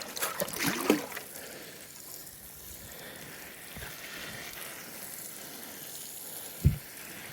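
Water pouring steadily from a jug onto a bed of strawberry plants, with a single low thump near the end.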